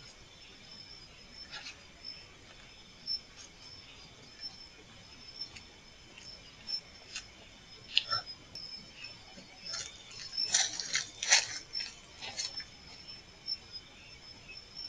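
Crickets chirring steadily at night, with scattered sharp clicks over them and a quick run of louder clicks about ten to twelve seconds in.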